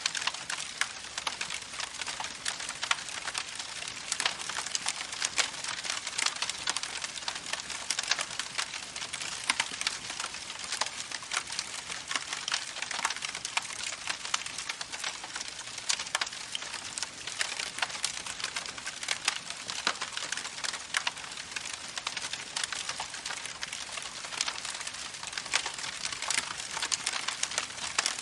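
Campfire crackling with a steady stream of small, irregular pops over the even rush of a babbling creek.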